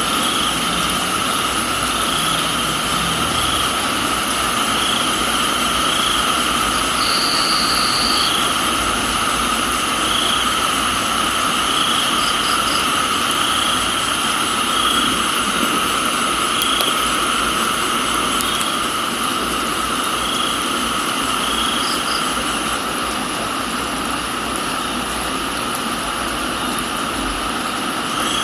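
Steady rain with crickets calling over it: a continuous high trill, a chirp that pulses about once a second, and a few brief higher chirps.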